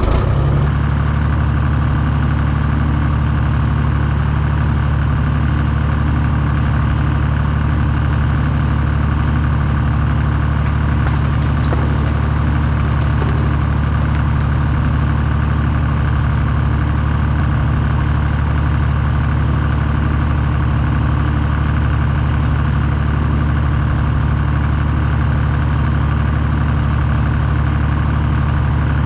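Treefarmer skidder engine running steadily at an even, unchanging speed, loud and close, with a strong low hum and no revving.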